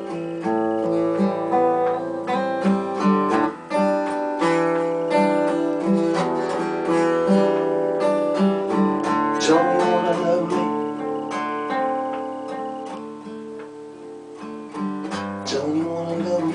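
Acoustic guitar playing chords in a solo instrumental passage, with no voice. It gets quieter about twelve seconds in, then picks up again near the end.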